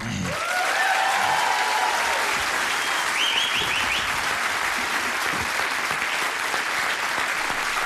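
Studio audience applauding steadily at the end of a live song.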